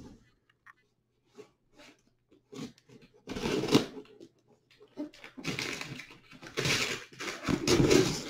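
Brown kraft-paper wrapping on a package being cut with a knife and torn open: several bursts of paper crinkling and tearing, starting about three seconds in and loudest near the end.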